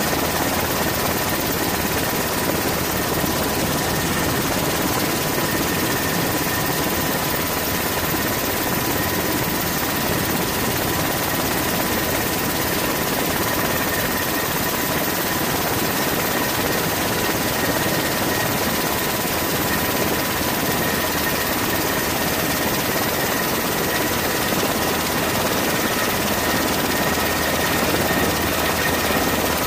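Helicopter in flight heard from on board: a steady, unchanging din with a constant whine over it.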